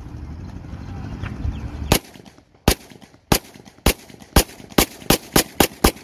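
A 9mm Beretta 92FS-pattern semi-automatic pistol firing a string of about ten shots as fast as the trigger is pulled, starting about two seconds in and speeding up toward the end. Before the first shot there is only a low rumble.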